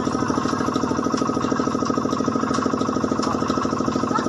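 Small engine driving a sugarcane crusher, running steadily with a fast, even throb.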